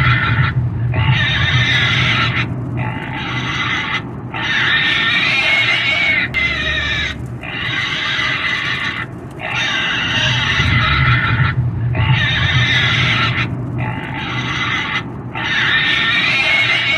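Pig squealing: a string of loud, high-pitched screams, each a second or two long, with short breaks between them.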